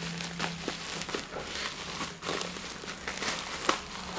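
Plastic parcel wrapping crinkling and crackling as it is pulled off a small cardboard box, with one sharper crackle near the end.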